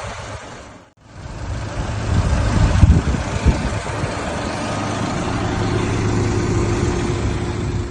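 A motor vehicle's engine running steadily under a loud, rough wash of noise, with a sudden cut and dip in sound about a second in.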